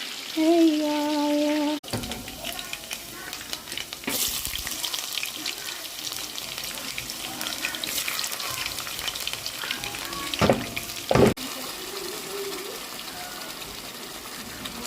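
Food frying in hot oil, sizzling and crackling, with two loud knocks about ten and eleven seconds in. It follows a brief stretch of sung gospel music at the start.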